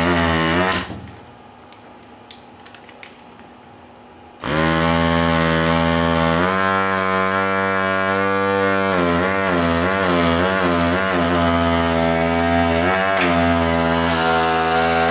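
Desoldering gun's built-in vacuum pump humming as it sucks molten solder through the heated nozzle. It stops a little under a second in, leaving a few faint clicks, then starts again about four seconds in and runs on, its pitch wavering for a couple of seconds in the middle as it draws.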